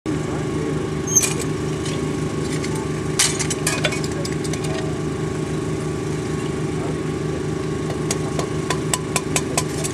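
A small engine runs steadily throughout, with sharp knocks and clinks as the sand mould is broken away from a freshly thermite-welded rail joint. There are a few knocks about a second in and around three to four seconds, and a quick run of them near the end.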